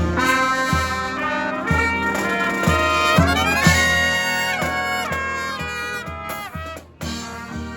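A brass marching band playing live: trumpets, trombones and saxophones in held chords over a low bass note about once a second. About three seconds in the horns glide upward into a long held chord, and the playing breaks off briefly near the end before picking up again.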